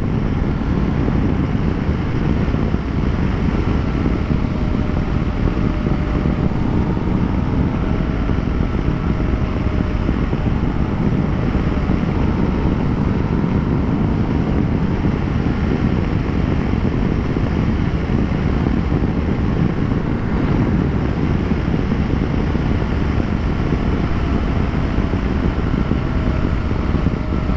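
Wind rushing over the microphone while riding a BMW R1200GS at a steady speed, with the boxer twin engine's faint, nearly steady note underneath.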